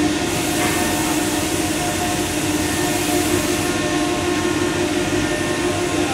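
Steady drone of CNC router shop machinery running: a constant hum with steady tones under a broad hiss. A brighter, louder hiss joins a fraction of a second in and stops after about three seconds.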